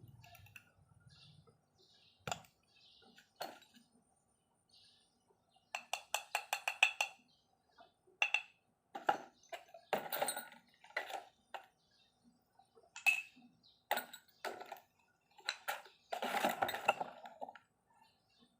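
Metal engine parts and tools clinking and knocking as they are handled during engine assembly, with a quick run of about ten clicks partway through and several heavier knocks later.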